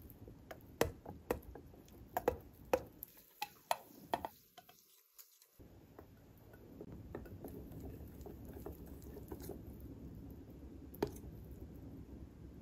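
Kitchen utensils and dishes being handled: a quick run of sharp taps and clicks for about four seconds. After a brief silence comes a steady low noise with scattered faint ticks and one sharper click near the end.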